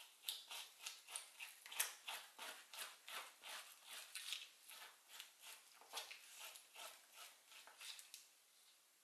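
Faint scraping of a metal spoon drawn along a raw Spanish mackerel fillet, taking the flesh off the skin: quick repeated scrapes, about three a second.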